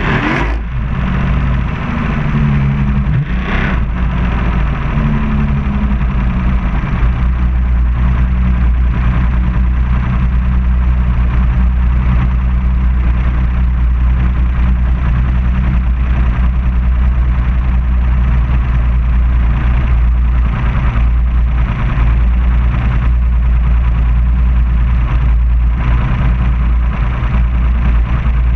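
Racing powerboat's outboard engine running at low speed, a steady low drone heard from on board. In the first few seconds its pitch wavers up and down a few times, then it holds steady.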